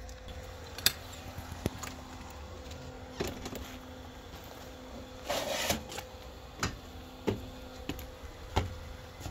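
Footsteps and handling of a motorhome's entry door: scattered clicks and knocks of the latch and door, with a short scraping rustle about five seconds in as the door is opened and someone steps up inside. A faint steady hum sits underneath and fades near the end.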